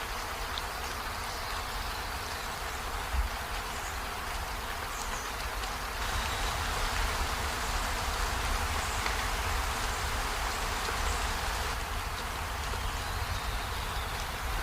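Steady rain falling on trees and a window, a steady hiss that grows a little heavier about six seconds in and eases back about twelve seconds in.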